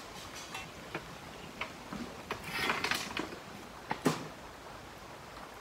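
Hand tools digging out rocky ground: scattered sharp knocks of a pick and shovels striking stones, with a longer scrape through soil and gravel about two and a half seconds in and the loudest knock about four seconds in.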